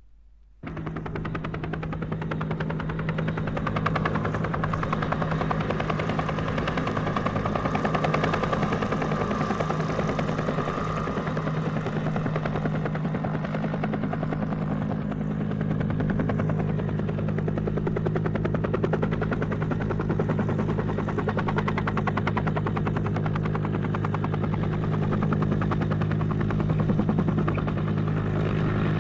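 Helicopter sound effect from a vinyl record: rotor and engine running steadily with a rapid rotor chop, starting abruptly about half a second in after a silent groove.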